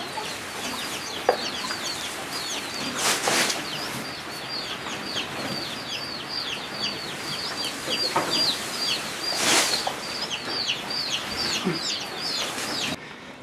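Chickens peeping: a steady run of short, high, falling peeps, several a second, typical of chicks. Twice, at about 3 s and 9.5 s, a brief rustle of leafy peanut plants being handled.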